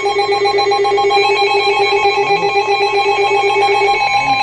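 Weather radio warning alert: steady, loud electronic alarm tones, with the lowest of them cutting off about four seconds in. It signals that a new severe weather warning is about to be broadcast.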